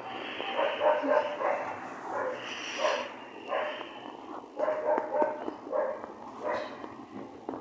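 A dog barking repeatedly in short, irregular runs.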